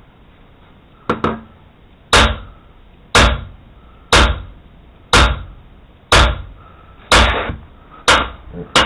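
Hammer blows on steel, struck steadily about once a second, about nine in all, each ringing briefly. The blows land on a bar set in a hole in a backhoe's hydraulic swing cylinder during its teardown.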